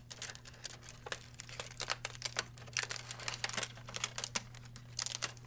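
Blue packing tape and a cardboard restraint being pulled out of an HP OfficeJet Pro 8710's plastic paper input tray by hand: a string of irregular light clicks, taps and rustles, over a low steady hum.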